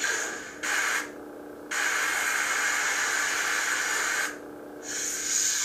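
Lightsaber sound board (Crystal Focus V5) playing a sound font through the hilt's speaker: a steady low hum with hissing swing sounds that swell and drop away in stretches, the longest lasting about two and a half seconds.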